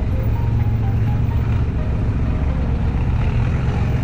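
Side-by-side UTV engine running steadily with a low drone while driving on a dirt trail, with background music laid over it.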